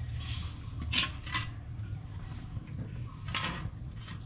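A metal ladle stirring and scraping in an aluminium wok of simmering yellow fish broth. It makes a few short scrapes over a steady low hum.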